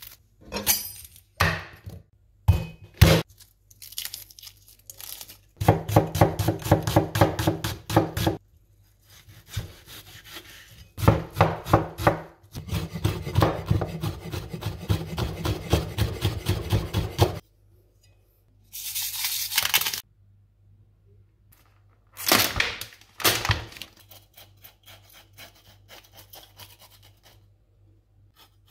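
Large kitchen knife chopping peeled garlic cloves on a wooden cutting board: a few separate knocks, then two long runs of quick, even strokes. Later come a short scraping hiss and another brief burst of knocks.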